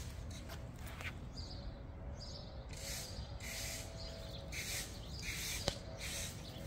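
Short, soft hissing rustles, repeated irregularly about every half second, over a steady low outdoor rumble, with a couple of faint clicks.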